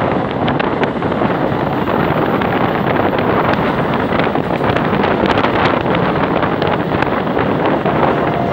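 Wind buffeting the microphone at the open window of a moving passenger train, over the steady rumble of the train running along the track with many quick clicks from the wheels.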